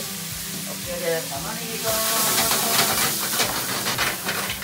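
Onion sizzling loudly as it hits a hot frying pan over a gas flame and is stirred in, with the sizzle swelling about two seconds in and the clatter and scrape of a metal utensil against the pan.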